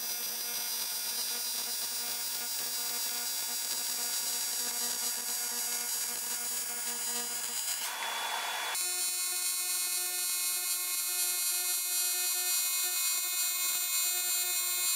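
AC TIG welding arc on aluminium, a steady electric buzz with a hiss of shielding gas. About eight seconds in the buzz breaks briefly into a hiss and resumes at a different pitch.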